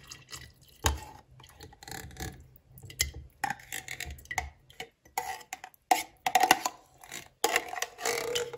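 Metal spoon scraping thick, set coconut cream out of an opened tin can into a glass jar: irregular scrapes and knocks of metal against the can, several a second.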